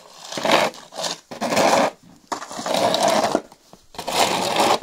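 Plastic snow shovel scraping across a frozen, icy flat roof, pushing snow in four rasping strokes about a second apart.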